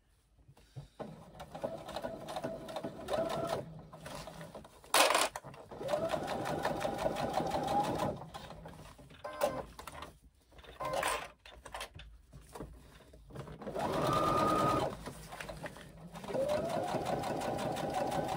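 Brother domestic electric sewing machine stitching a seam in several stop-start runs. The motor whines up to speed at each start and drops out between runs, and there is one sharp click about 5 seconds in.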